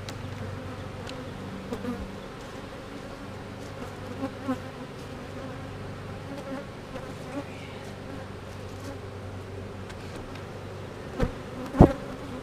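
A cloud of honeybees humming steadily around an open hive. Near the end come two sharp wooden knocks, the second louder, as a hive box is set down on the stack.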